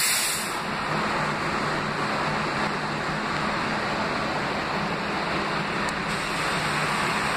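A Budd R32 subway train standing in an underground station, making a steady din with a low hum, and a short hiss of air right at the start.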